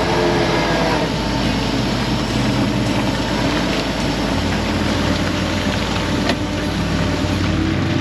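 Fishing boat's engine running steadily under a constant wash of water noise. The low hum shifts slightly about four seconds in.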